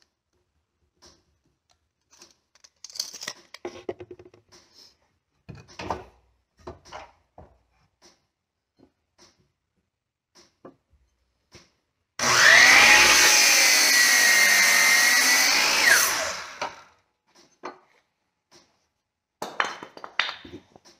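Light clicks and knocks. A little past halfway a DeWalt miter saw starts and runs with a high whine for about four seconds while cutting through a 2x4, then switches off and winds down.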